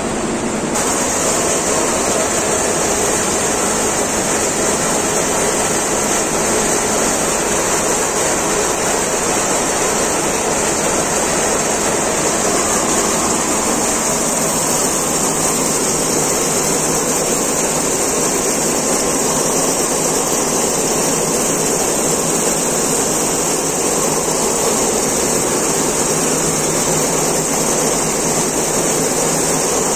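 Richpeace multi-needle computer quilting machine running, its long row of needles stitching fast enough to blend into one loud, steady noise.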